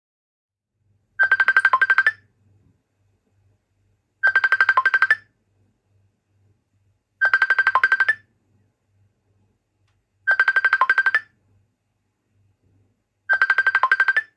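Facebook Messenger's incoming-call ringtone playing from a Samsung Galaxy S22's speaker: five rings about three seconds apart, each a quick run of rapid high notes lasting about a second. A faint low buzz pulses on and off underneath.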